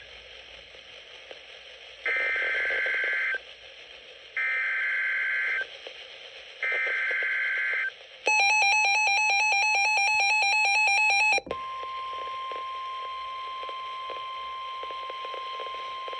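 Emergency Alert System SAME header: three bursts of screechy digital data tones, each about a second long and spaced about a second apart. They are followed by the harsh two-tone EAS attention signal, which lasts about three seconds and cuts off abruptly, then a steady single beep-like tone over hiss. Together they open a new NWS dust storm warning that cuts in before the previous alert's end-of-message tones.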